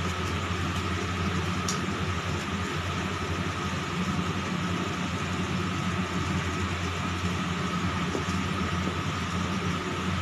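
A steady mechanical hum, low with a fainter higher tone above it, holding an even level throughout. A single light click comes about two seconds in.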